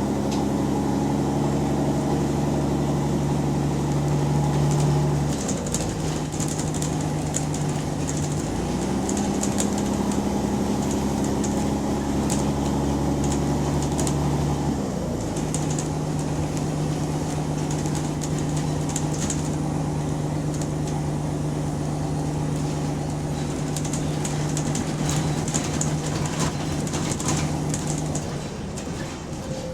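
Bus diesel engine with an exhaust leak, heard from inside the bus, holding a steady drone under load for about five seconds, easing off, pulling again for about six seconds, then running more lightly. Light rattling ticks come and go over it.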